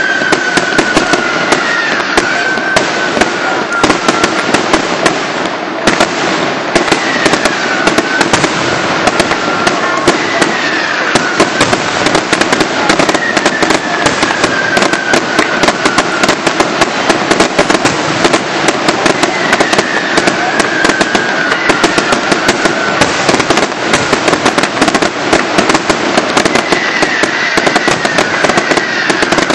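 Fireworks display going off in a dense, continuous barrage of sharp cracks and bangs. Every few seconds a falling whistle sounds through it.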